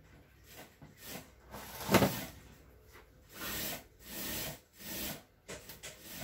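Hands rubbing and sliding across the face of a bare LCD panel, a series of separate swishes each about half a second long. The loudest comes about two seconds in, and several shorter quick ones follow near the end.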